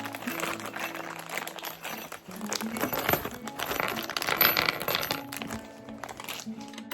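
Crinkling of flat-pack furniture packaging and small metal hardware clinking as parts are handled and unpacked, loudest about midway, over light background music.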